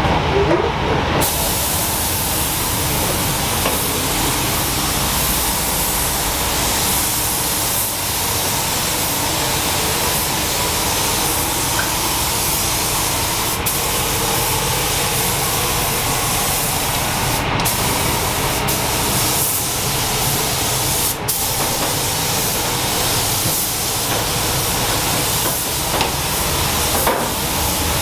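Compressed-air paint spray gun hissing steadily as it sprays paint. It starts about a second in and has a few momentary breaks.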